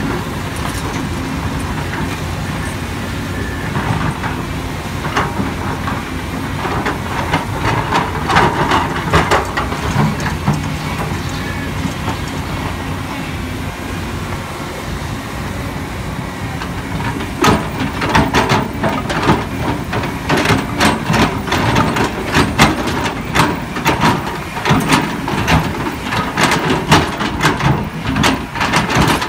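Volvo EC350DL crawler excavator's diesel engine running steadily as it digs, with bursts of clanking and knocking from the machine at work from about four to ten seconds in and again through the second half.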